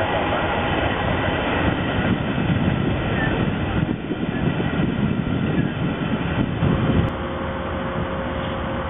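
Via Rail passenger coaches rolling past close by, their wheels rumbling and clattering on the rails. About seven seconds in the rumble cuts off sharply to a quieter steady hum with a faint held tone.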